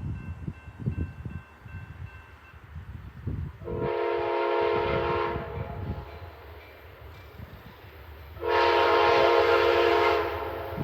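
Amtrak Lake Shore Limited's lead locomotive air horn blowing two long chord blasts, each nearly two seconds, about three seconds apart, over a low rumble: the approach warning for a grade crossing.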